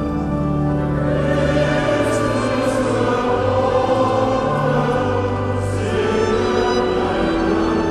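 Background choral music with orchestral accompaniment: slow, sustained chords with the bass changing every second or two.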